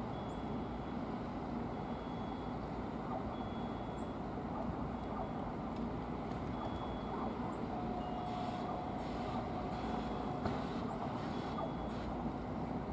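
Electric multiple unit running slowly into the platform with a steady rumble. A steady whine sounds from about eight seconds in, cutting off a couple of seconds later.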